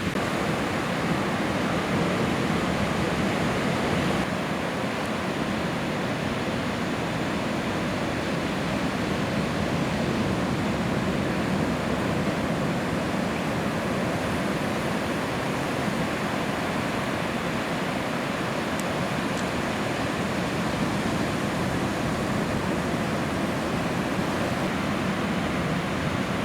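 Steady rush of ocean surf breaking, an even roar of water noise with no distinct events.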